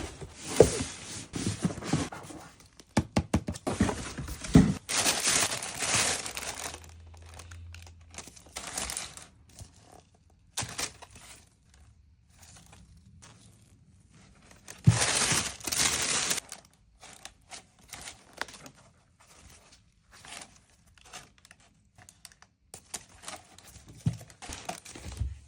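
Shoebox and paper wrapping being handled: irregular crinkling and rustling with scrapes and light knocks, loudest in two spells about five and fifteen seconds in.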